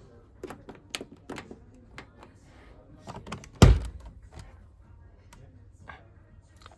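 A front-loading washing machine being handled: a run of clicks and knocks, then one loud thunk a little past halfway, the loudest sound, as the porthole door is worked.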